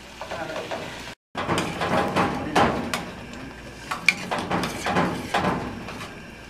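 Metal spoon stirring in a stainless steel pot, with irregular clinks and knocks against the pot's side and rim. The sound drops out briefly about a second in.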